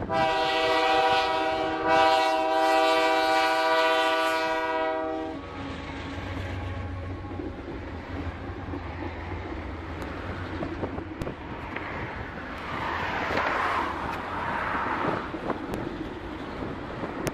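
Diesel locomotive horn sounding one long blast of about five seconds as the train approaches. Then the locomotive's engine drones past, and the freight cars roll by with rumbling and clicking wheels.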